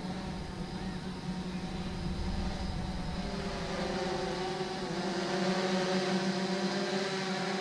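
Small quadcopter drone's propellers buzzing steadily: several tones held together, some shifting slightly in pitch about halfway through.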